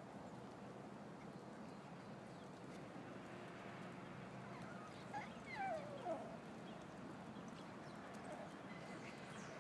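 A few short, gliding yips or whines from a Lhasa Apso puppy about five to six seconds in, over a steady background hiss.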